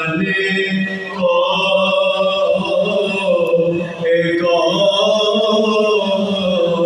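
Men's voices chanting soz, an unaccompanied Shia mourning elegy, with a lead reciter and backing voices in unison. They hold long, wavering notes, with brief breaks about one and four seconds in.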